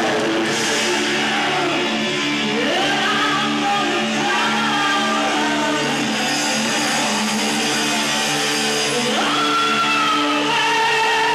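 Live rock band playing, with an electric guitar holding long notes that slide up in pitch.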